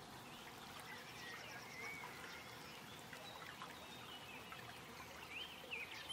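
Faint outdoor ambience: scattered bird chirps and calls over a steady soft hiss, with a few louder chirps near the end.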